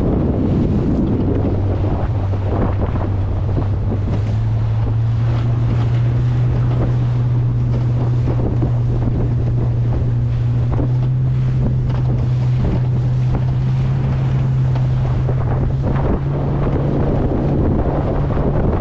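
Boat engine running steadily, its pitch stepping up about four seconds in and then holding, with wind buffeting the microphone.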